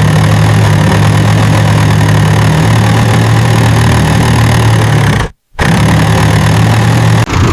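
Truck engine running steadily with a low, even hum. It cuts out abruptly for a split second about five seconds in, then carries on.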